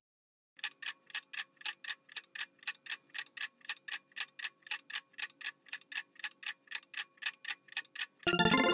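Clock-ticking sound effect counting down, with quick, even ticks about four a second. About eight seconds in, a bright chime begins, signalling that time is up.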